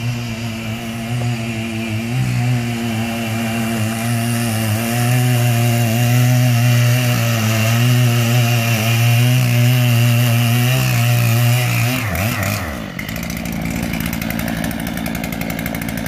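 Chainsaw running at steady high revs as it cuts into the base of a large tree being felled. About twelve seconds in its note drops and comes back rougher and more rapidly pulsing.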